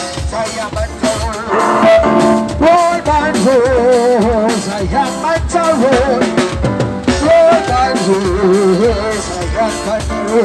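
Jamaican nine-night band playing live through a truck-mounted sound system: a Yamaha keyboard and drums keeping a steady beat, with a singing voice over them.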